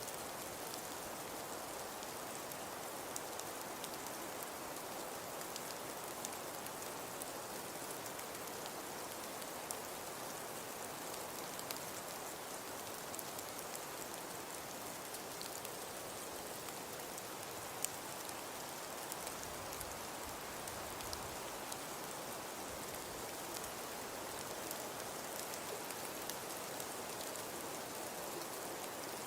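Falling snow making a steady, soft patter, with many faint scattered ticks and one slightly louder tick about 18 seconds in.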